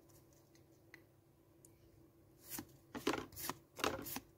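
Pokémon trading cards being slid one past another in the hands as a pack is sorted through: short papery swishes and flicks. They come in a quick run starting about two and a half seconds in, after a near-quiet start with one faint click.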